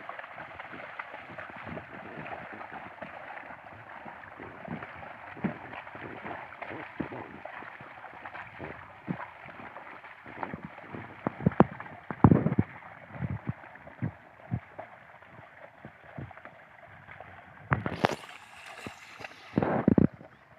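Water and mud sloshing and splashing as two bullocks drag a wooden leveling board through a flooded paddy field, with their hooves splashing in the mud in an irregular patter. There are louder splashes about twelve seconds in and near the end.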